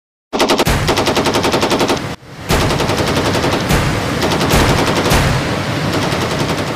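Machine-gun fire bursting in suddenly, a rapid even rattle of about nine shots a second, then a brief break and more continuous firing noise with scattered heavier hits.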